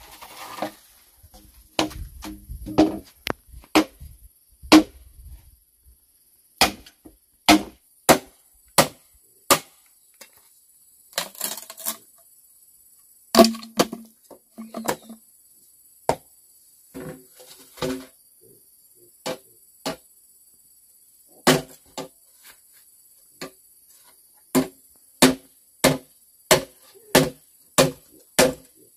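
Machete blade striking a length of green bamboo again and again, cutting and splitting it into strips on a wooden block: sharp knocks with a brief ring, in irregular groups with pauses, then about two a second near the end.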